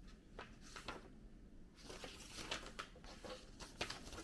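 Faint paper rustling and light clicks as a purchase receipt and its paper packaging are handled, the rustling growing denser about halfway through.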